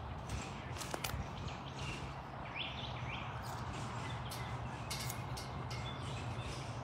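Outdoor background noise, a steady hiss over a low hum, with a few faint bird chirps and several soft clicks.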